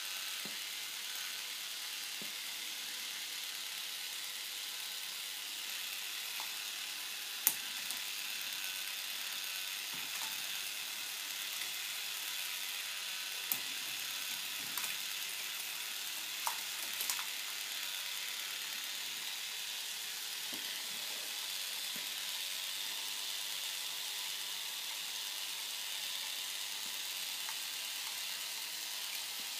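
K'nex ball machine running: a steady clatter from its plastic gears and mechanisms, with a handful of sharp clicks as plastic balls knock against the pieces. The loudest click comes about seven seconds in, and a few more follow in the middle stretch.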